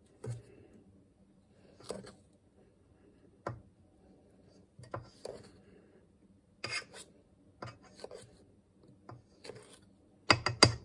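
A knife chopping firm sticks of butter in a stainless steel mixing bowl, the blade knocking and scraping against the bowl in short, irregular strokes, with a quick run of sharper clinks near the end.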